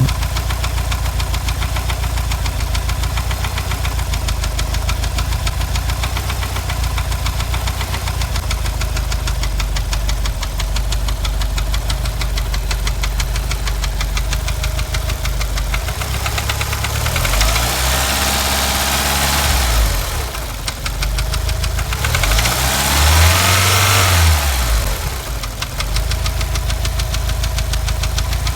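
Mitsubishi E38A Galant engine idling with a fast, even tapping tick, blipped up and back down twice about two-thirds through. The owner likens the tick to tappet noise from a broken lash adjuster; it appeared after the engine blew oil.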